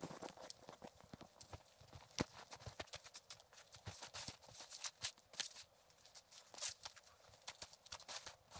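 Footsteps crunching in deep snow, with trekking poles being planted, as a hiker climbs; faint, irregular crackling steps.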